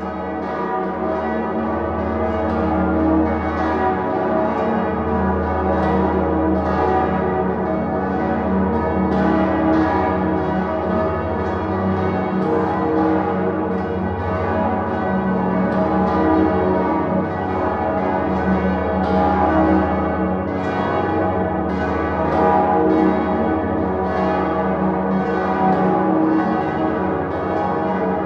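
Full peal of the cathedral's seven bells, tuned to a minor motif on E-flat, ringing together. Overlapping strikes come thick and fast over the deep, sustained hum of the great Salvator bell.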